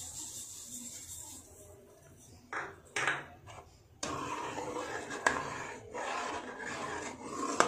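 Steel spoon stirring and scraping thickening milk around a metal kadhai. There is a sharp clink against the pan about five seconds in and another near the end.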